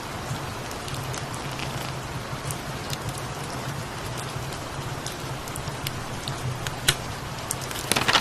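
Steady rain with scattered sharp pops from a fireplace fire and a low steady rumble beneath, from a mixed rain-and-fireplace ambience track. A brief, louder cluster of crackling comes near the end.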